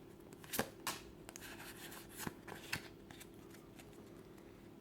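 Pokémon trading cards from a freshly opened booster pack being handled and slid apart: a few faint clicks and light scrapes of card stock.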